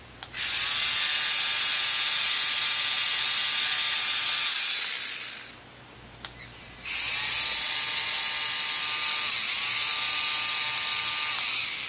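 3Doodler 3D pen's filament-feed motor whirring as it pushes out plastic, in two runs of about five seconds each with a short pause between. A click comes just before each run, and its whine shifts in pitch as it comes up to speed.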